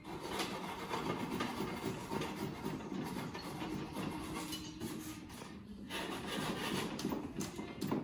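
A flush-cut dowel saw, its teeth without set so they don't scratch the surface, sawing off wooden dowel pegs flush with a window sash joint, in repeated scraping strokes with a short break about two-thirds of the way through.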